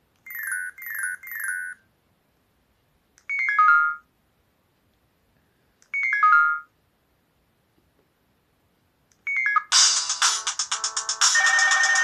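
Newgen C800 mobile phone's speaker: three quick high chirps as keys are pressed, then two brief descending melody snippets a couple of seconds apart. Near the end a loud, busy ringtone melody starts and keeps playing.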